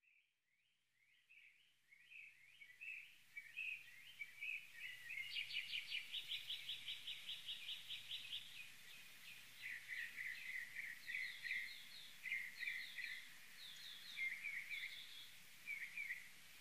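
Birdsong fading in from silence: quick repeated chirps and trills from one or more small birds, fairly faint, used as a recorded sound effect between tracks of a late-1960s rock album.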